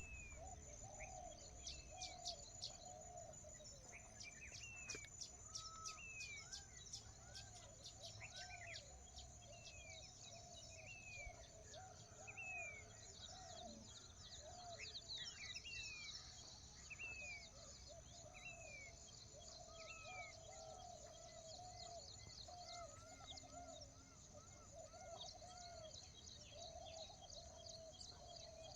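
Faint chorus of several birds calling: short arched chirps repeated about once a second over a lower running warble. A steady high-pitched buzz continues underneath.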